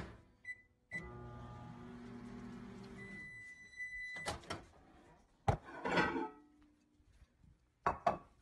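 Microwave oven keypad beeping twice as buttons are pressed, then the oven running with a steady electrical hum for about three seconds. A long beep sounds over the end of the hum, followed by a few clicks and knocks.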